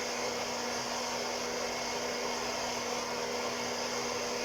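Hot-air coffee roaster's blower and heater running steadily, an even rushing air noise with a steady low hum, mid-roast before first crack.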